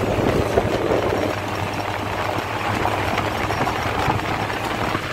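Bus engine running and road noise heard inside a moving bus: a steady low hum under an even rushing noise.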